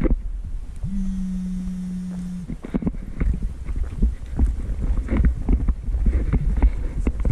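Moving-microphone noise: a low rumble of wind and handling with repeated irregular thuds of motion. A steady low hum lasts about a second and a half near the start.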